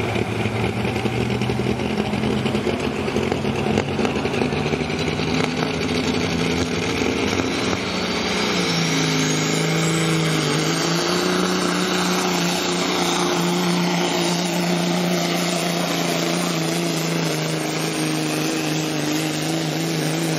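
Pro stock semi truck's diesel engine running hard under load while pulling the sled. Its pitch dips and wavers about nine seconds in, then holds steady.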